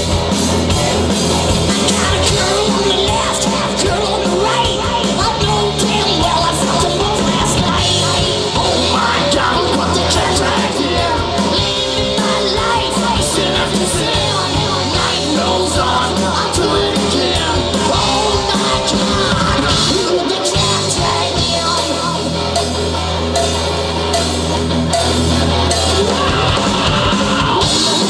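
Live hard rock band playing loud: a singer shouting and singing over electric guitar, bass guitar and a drum kit.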